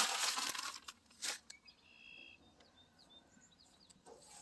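Masking tape being peeled off a truck body and crinkling for about the first second, with one more short rip a little later. Faint bird chirps follow.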